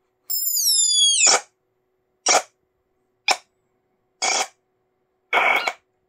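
Laptop speakers glitching on a Nahimic SteelSeries HD audio chipset under Debian 12. A high-pitched squeal glides downward for about a second, then four short crackling pops come about a second apart. It is a sound-output fault on this chipset, not the audio being played.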